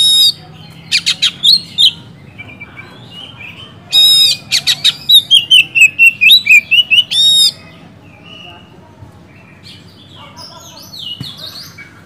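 Oriental magpie-robin singing loudly in rapid bursts of sharp repeated notes and whistled sweeps. The longest, loudest phrase runs from about four to seven and a half seconds, followed by a pause and softer notes near the end.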